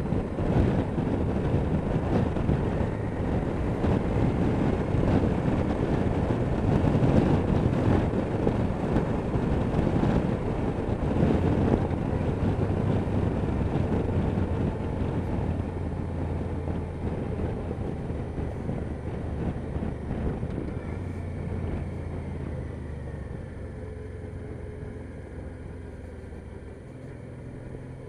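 Wind rushing over an action-camera microphone on a moving motorcycle, with the Honda Deauville NT650V's V-twin engine running steadily underneath. The wind noise fades over the second half, leaving the engine's low hum plainer.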